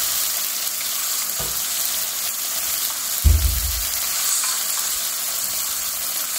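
Chopped watermelon rinds sizzling steadily as they sauté in oil in a stainless steel pan, stirred with a wooden spatula. A dull thump comes about three seconds in.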